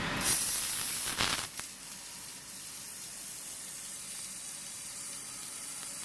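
Fiber laser cutting machine piercing 10 mm mild steel plate: a loud sizzling hiss of gas and molten metal that eases after about a second and a half into a steady hiss. It is a long pierce through the thick plate.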